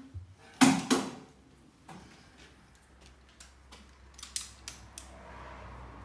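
Metal parts clanking and clicking: two loud sharp clanks about half a second in, then a scatter of lighter clicks, over a faint low steady hum.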